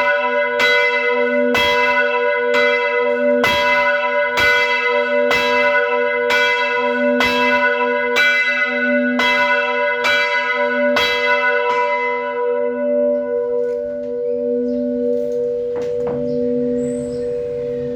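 Church bell rung by pulling its rope, struck about once a second. The strokes stop about twelve seconds in and the bell's low tone hums on while the higher ringing dies away.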